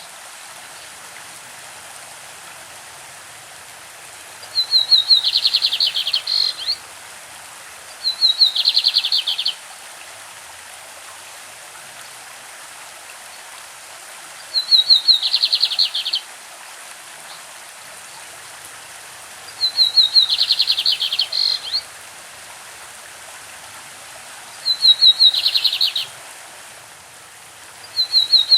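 Lined seedeater (bigodinho) singing its classic song: five short phrases of rapid repeated notes, a few seconds apart, over the steady rush of a stream.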